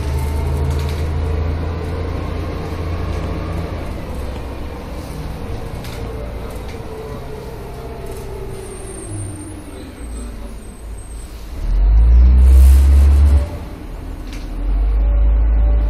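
Van Hool AG280 articulated bus heard from inside its trailer section while it drives: the engine note falls slowly over the first ten seconds as the bus eases off, then two loud deep rumbles come near the end.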